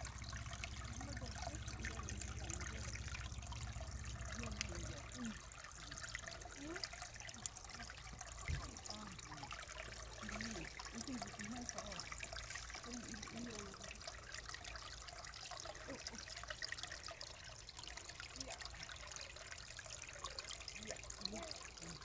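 Mountain valley stream trickling and babbling over rocks, a steady even rush of water. A low rumble underneath stops about five seconds in.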